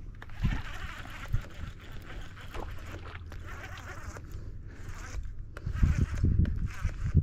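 Fishing reel being cranked in bursts, a zipper-like gear whir. Near the end there are heavy low thuds and rumbling.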